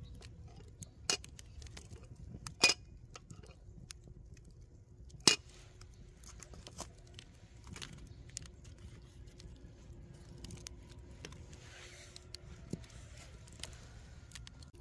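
Metal tongs clinking and knocking against burning charcoal as the fire under a kettle is rearranged: three sharp clinks in the first five seconds, then lighter taps and small crackles from the fire.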